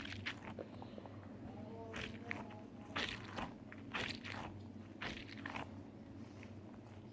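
Soft rubber squishy pop squeeze toys being squeezed and handled close to the microphone, giving irregular short squishing and crackling noises.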